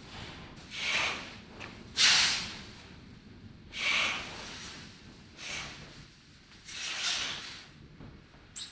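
Sound installation giving out gusts of hissing, breath-like noise: about five irregular bursts, each up to a second long, the loudest starting sharply about two seconds in, then a short sharp click near the end.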